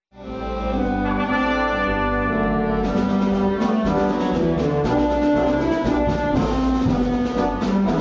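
Brass-led orchestral music with sustained horn notes, growing fuller about three seconds in: a radio show's bumper music bringing the programme back from a commercial break.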